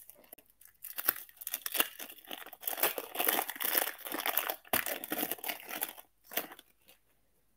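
Shiny foil wrapper of a 1998 Topps Chrome Football trading-card pack being torn open and crinkled as the cards are slid out. The crackling starts about a second in, comes in quick bunches, and stops shortly before the end.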